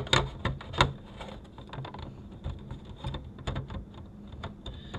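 Plastic cover of a minivan's overhead video entertainment screen being handled and pressed onto its plastic housing: a run of irregular light clicks and taps, with two louder snaps in the first second.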